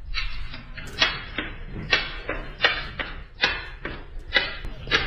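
A regular run of sharp hits, about one every three-quarters of a second, each trailing off briefly.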